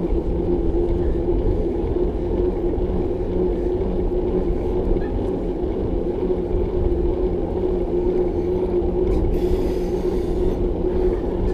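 Steady rumble of a moving bicycle ride on the microphone, tyre and road noise with a constant low hum, unchanging throughout.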